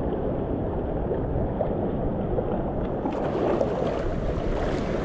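Steady low rushing of wind and water outdoors, buffeting the microphone, with a thinner hiss joining about three seconds in.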